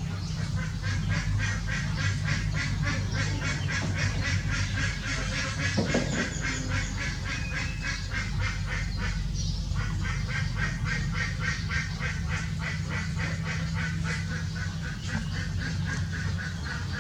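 Birds calling in a rapid, steady series of short notes, about five a second, with a brief pause about halfway through, over a steady low hum.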